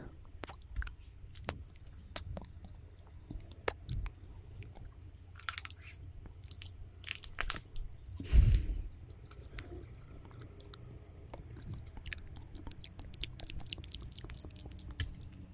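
ASMR mouth sounds close to a microphone: wet lip smacks and tongue clicks, scattered at first and then coming in a fast, dense run near the end. There is one louder low thud about eight seconds in.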